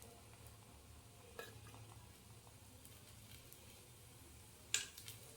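Parotta frying in oil on a hot iron dosa tawa, a faint sizzle, with a light tap about a second and a half in and a louder sharp click near the end.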